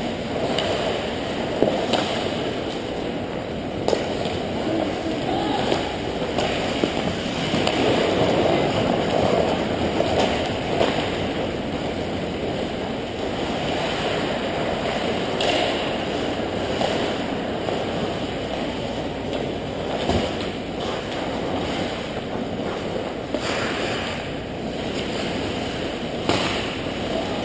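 Ice hockey rink ambience during play: a steady noisy wash with scattered sharp clacks of sticks and pucks on the ice.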